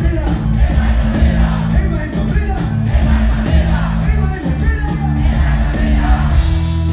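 Live pop-rock band playing loudly with sung vocals and a heavy bass line, with shouts from the crowd mixed in.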